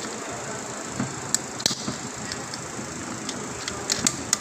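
A few light metallic clicks and taps from small transmission parts and tools being handled, such as a snap ring and clutch parts, over a steady background hiss. The clicks come about a second in, twice more soon after, and in a small cluster near the end.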